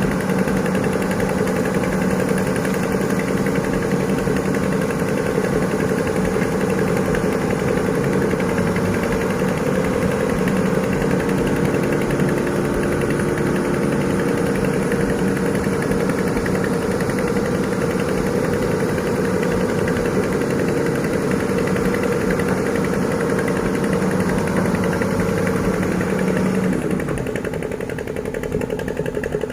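Heavy diesel engine running steadily with an even, throbbing note. Near the end the note changes and the sound gets a little quieter.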